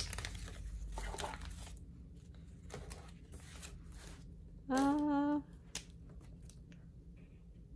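Paper money rustling and crinkling as a stack of dollar bills is handled and laid flat on a table, with a few light taps and clicks. About five seconds in comes a short hummed "mm" from a voice, the loudest sound.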